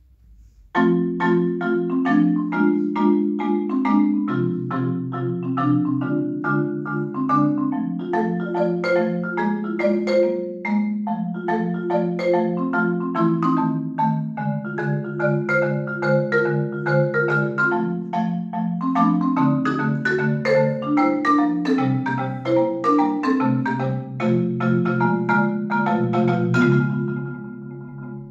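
Concert marimba played solo with mallets: a continuous run of struck notes over lower bass notes, starting about a second in and thinning briefly near the end.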